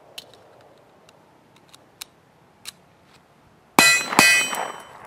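Steel target struck twice, about half a second apart, each hit giving a loud metallic clang that rings out and fades; a few faint clicks come before.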